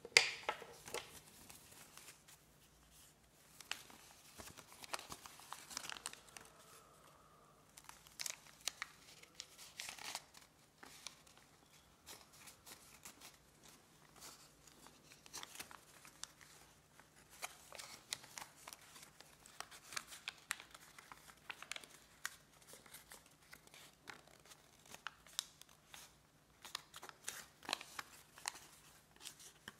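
Sheet of origami paper being folded and creased by hand, rustling and crinkling in short irregular bursts, with the loudest sharp sound right at the start.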